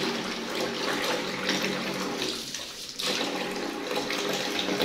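Water running into a bath with some splashing; the flow sound dips briefly a little past halfway, then comes back.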